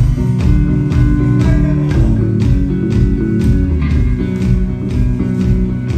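Live rock band playing: electric guitars, bass and drums with a steady beat.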